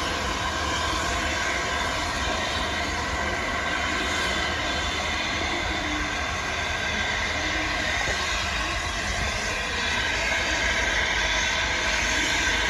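LNER A4 Pacific steam locomotive Sir Nigel Gresley standing with steam escaping: a steady hiss with no rhythm of exhaust beats.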